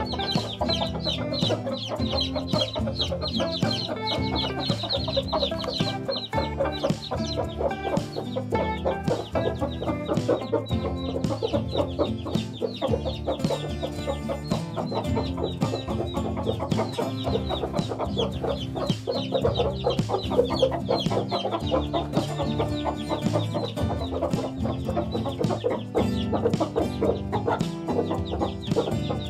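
A brood of young chicks cheeping rapidly and without pause, with hens clucking among them, over background music.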